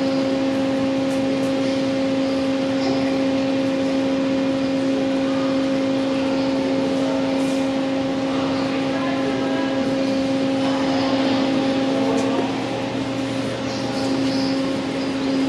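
Steady ventilation hum of a large hangar's air-handling fans, a constant low tone over a even rush of air.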